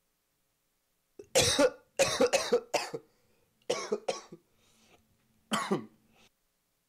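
A man's harsh, strained vocal cries in four loud outbursts, the second made of several quick gasps, with silence between them.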